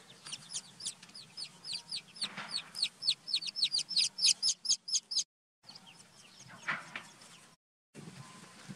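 Baby chicks peeping: a rapid run of short, high, falling peeps, several a second, that stops abruptly a little past halfway, followed by a few more peeps and a brief rustle.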